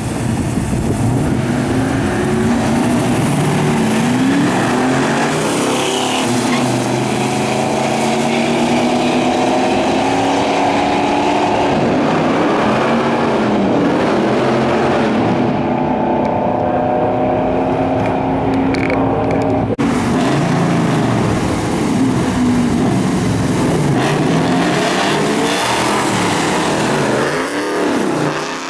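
Two classic muscle-car V8s, one of them an Oldsmobile 442, racing side by side at full throttle down a drag strip. Their pitch climbs and drops back at each gear change.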